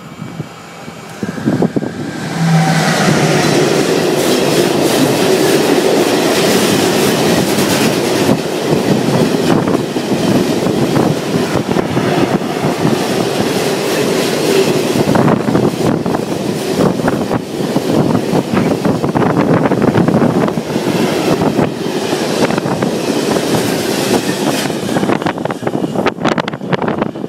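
Freight train of loaded log wagons, hauled by DB Class 145 electric locomotives, passing at speed. The wheels rumble and clatter over the rails, rising sharply about two seconds in as the locomotives go by, running on as the wagons pass, and easing off near the end.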